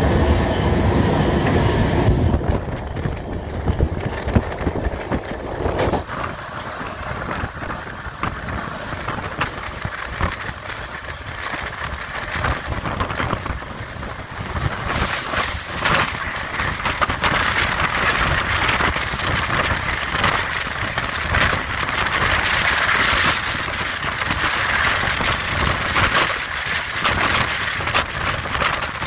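A passenger train in motion, the Janta Express: a steady running rumble with wheels and coaches clattering over the rails.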